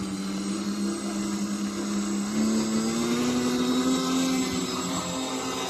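Tricopter drone's electric motors and propellers running with a steady hum; the pitch rises a little about two seconds in.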